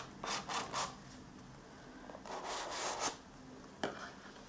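A small cardboard box being opened, its inner tray sliding out of the sleeve: a few short scrapes in the first second, a longer rub around the middle, and a light click near the end.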